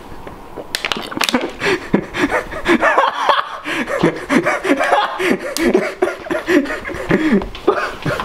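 Hearty laughter in quick, repeated bursts, starting about a second in and running on.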